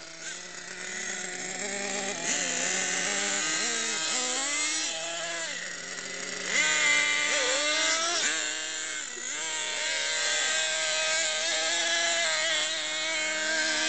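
Motors of several radio-controlled cars revving on ice, with two or more pitches rising and falling against each other as the throttles open and close.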